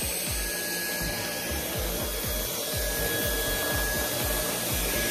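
Dyson Cyclone V10 cordless stick vacuum running with its floor head on a wooden floor: a steady rushing hiss with a thin high whine. Background music with a regular beat plays underneath.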